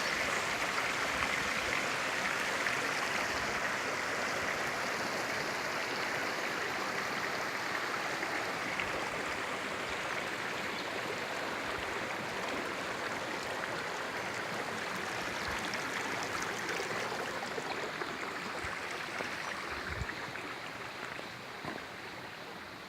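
Rushing water of a stream or waterfall, a steady hiss that slowly grows quieter toward the end.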